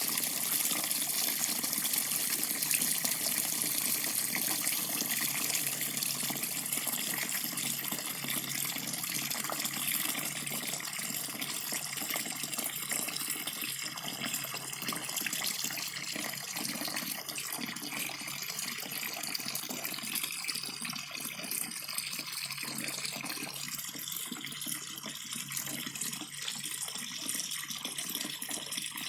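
Tap water running steadily from a faucet, a continuous splashing rush that slowly grows quieter.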